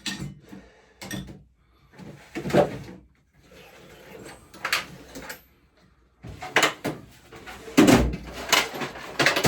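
A string of sharp clatters and knocks of hand tools and metal parts being handled, coming thicker near the end.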